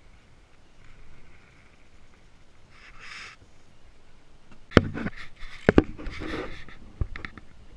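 Fabric rubbing against the camera, then several sharp knocks and clicks with rustling from about five seconds in, as a baitcasting reel with a tangled line is handled.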